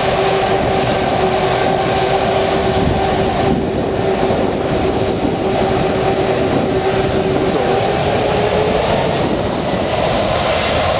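Boeing 747's four jet engines at takeoff thrust, a loud steady rushing blast with a held whine that rises slightly and fades near the end.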